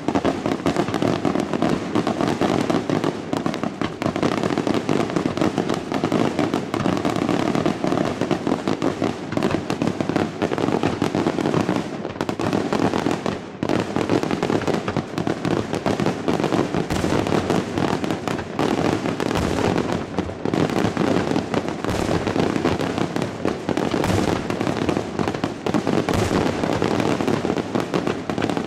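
Daytime fireworks barrage: a dense, continuous rattle of bangs and crackling from shell bursts and firecrackers, many reports each second without a pause.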